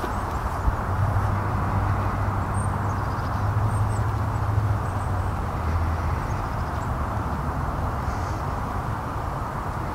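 Steady outdoor background noise with a low, engine-like hum.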